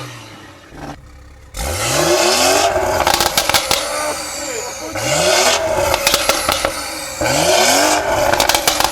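BMW X3 M40's turbocharged 3.0-litre inline-six, with an aftermarket downpipe and remap, revved three times; each rev climbs and drops back, followed by a string of crackles and pops from the exhaust.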